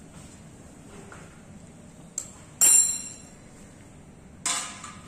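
Glassware clinking against the tiled bench: a light tap about two seconds in, then a sharp ringing clink, and another ringing clink near the end.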